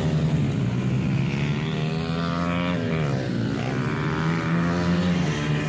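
Several small pit bike engines buzzing as the bikes race. About three seconds in, one engine's pitch drops and then climbs again as it comes off the throttle and picks back up.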